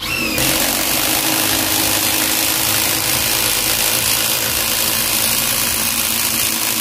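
Bosch GDR 18V-200 C cordless 18V impact driver running under load as it drives a long 180 mm screw into wood, its impact mechanism hammering in a fast, steady, loud buzz.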